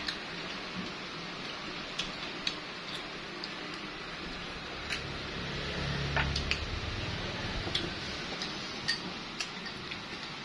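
Chopsticks clicking and tapping against ceramic rice bowls and plates during a meal, a dozen or so sharp irregular ticks over a steady background noise. A low rumble swells briefly near the middle.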